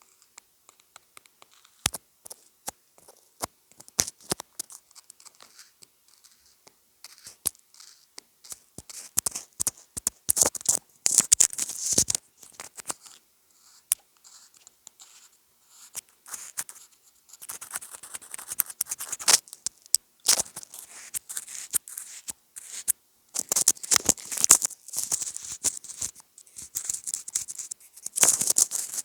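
Close-miked ASMR trigger sounds: scattered sharp taps and clicks, then bursts of scratching and crinkly rustling on a handmade object, with short pauses between.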